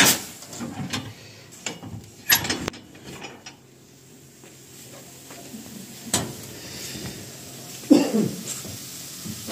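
Metal clanks and clicks from the latches and door of a sheet-metal mandi oven being worked by gloved hands and swung open. It comes as a few separate sharp knocks spread over the seconds, the loudest near the start and about two and a half seconds in.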